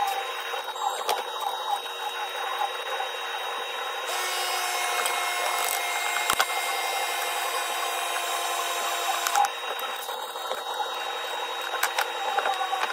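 Wood chisel scraping and paring in a notch cut across a wooden board, with a few sharp knocks of a wooden mallet driving the chisel, over a steady hum.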